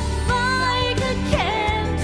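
Live band music: a steady bass and chords under a wavering melody line that swoops down about a second and a half in.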